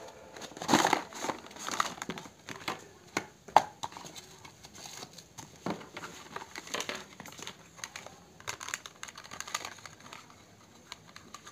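Packaging handled by hand: a cardboard box rubbing and sliding open, with crinkling from the plastic courier mailer beneath it, heard as irregular rustles, taps and scrapes. The loudest crinkles come in the first few seconds.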